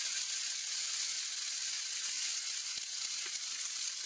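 Barracuda fish rolls sizzling steadily in oil in a frying pan as their skin browns.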